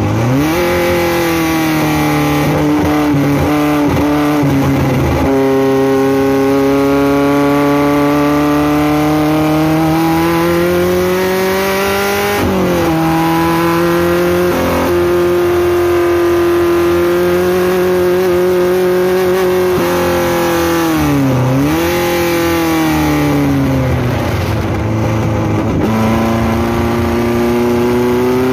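Four-cylinder race car engine heard on board under hard acceleration, the revs climbing and falling through the lap. The pitch dips sharply and climbs back near the start and again about 21 seconds in, as the driver lifts off and gets back on the throttle, and it changes abruptly about 12 seconds in.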